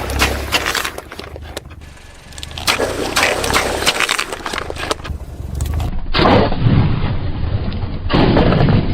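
Plastic toy vehicles scraping, rattling and clattering against each other and a hard surface in uneven bursts, changing abruptly about six seconds in.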